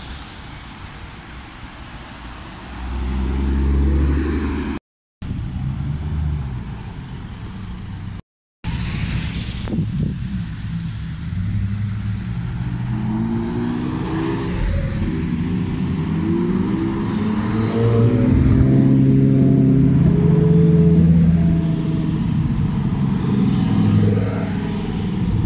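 Sports cars and supercars driving past one after another in a slow convoy, engines running and revving with pitch rising and falling, several overlapping in the second half. The sound drops out briefly twice in the first nine seconds.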